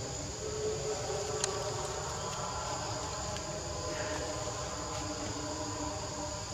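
Steady, high-pitched drone of insects in the forest, with lower steady hums beneath it and a single sharp click about a second and a half in.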